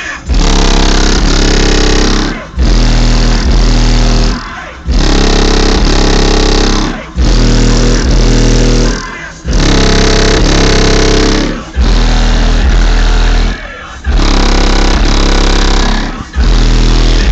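Bass-heavy music played at full power through two Kicker L7 15-inch subwoofers on a Kicker KX2500.1 amplifier, heard from outside the car. Deep bass notes come in repeated bursts about every two seconds with brief gaps between, loud enough to overload the recording.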